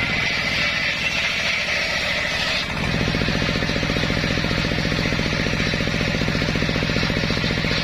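Engine-driven homemade circular sawmill running with a fast, even thudding beat. A higher hiss over it stops about a third of the way in, leaving the engine's steady pulsing.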